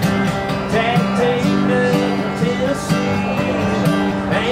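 Acoustic guitar strummed steadily with a man singing a country song over it.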